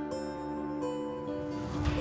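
Soft instrumental background music with sustained notes, with a swelling whoosh near the end.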